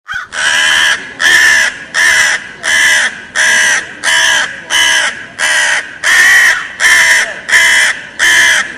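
A crow cawing over and over, about a dozen short caws in a quick, even series, roughly one and a half a second.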